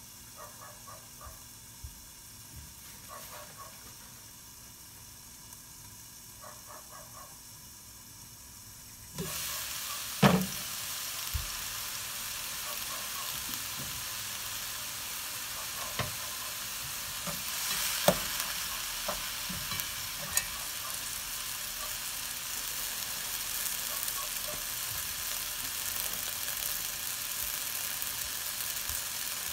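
Mung bean sprouts cooking without oil in a covered pan, faintly bubbling under the glass lid. About nine seconds in, the lid comes off and a loud, steady sizzle of steam and water in the hot pan takes over, with a knock soon after and scattered clicks of wooden chopsticks stirring against the pan.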